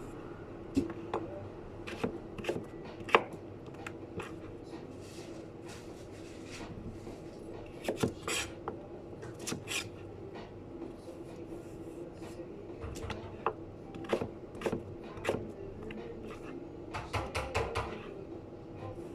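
Kitchen knife knocking and tapping on a cutting board in scattered, irregular strokes, with a quick run of strokes near the end, over a steady background hum.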